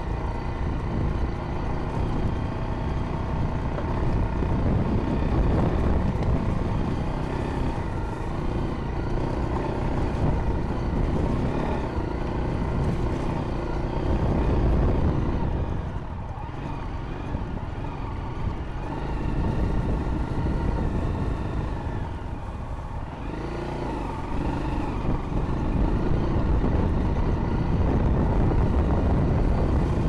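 Honda CRF dual-sport motorcycle's single-cylinder engine running while riding over a rocky dry creek bed, easing off twice near the middle and picking up again toward the end.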